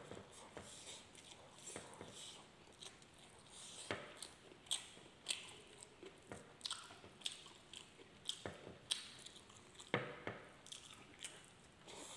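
A man eating rice and bangus (milkfish) sisig with his fingers: faint wet chewing and lip smacks, with an irregular scatter of short, sharp mouth clicks.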